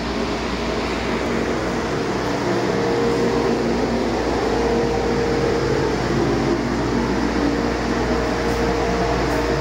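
2016 Paccar MX13 12.9-litre inline-six diesel engine running steadily, an even mechanical drone with a constant tone.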